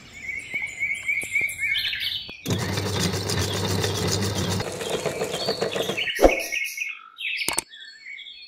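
Small birds chirping in a quick repeated series. Then a meat grinder runs with a steady motor hum and grinding noise for a few seconds as a whole fish is pushed into its hopper. A thump follows, then a few more chirps.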